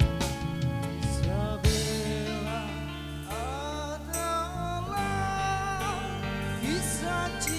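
Live band music: an instrumental introduction, with a lead melody sliding up into its notes over held chords and a steady bass.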